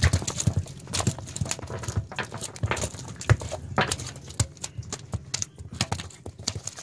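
A large fish flapping on wet wooden boat planks, its body and tail slapping the boards in a quick, irregular run of wet thumps.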